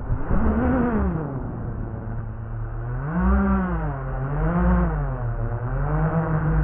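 FPV freestyle quadcopter's brushless motors and propellers whining, the pitch rising and falling with the throttle: one swell about a second in, two more around the middle, then held higher near the end.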